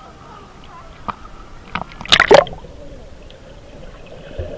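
Swimming-pool water lapping and dripping at the surface against a waterproof camera, with a loud splash a little after two seconds in as the camera goes under.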